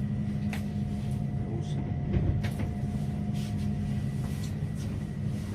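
Steady low mechanical hum with a faint steady tone above it, and a few light clicks.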